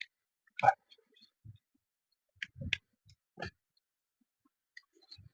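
Close-miked eating sounds: a few short wet mouth clicks and smacks while chewing chicken intestine. The loudest comes just under a second in, with a small cluster between about two and a half and three and a half seconds.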